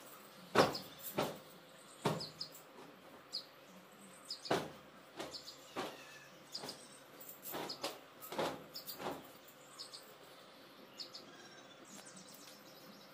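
Bedding being shaken out and spread over a bed: several sharp flaps and thumps of cloth and bedding, the loudest about half a second in, with short high chirps in the background.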